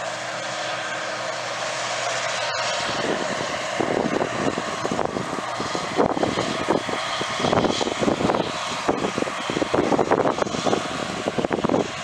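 Case IH Axial-Flow combine running steadily while harvesting corn. From about three seconds in until near the end, irregular bursts of noise come and go over the engine sound.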